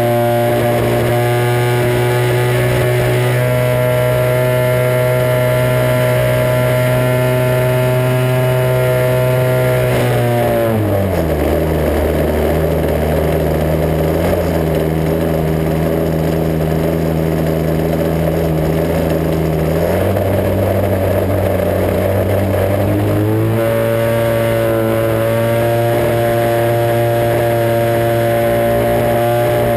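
Onboard sound of a radio-controlled Extra 260 model plane's motor and propeller running at a steady high throttle. About ten seconds in, the pitch drops sharply as the throttle is pulled back and rushing air comes up, then it climbs back to high throttle about 23 seconds in.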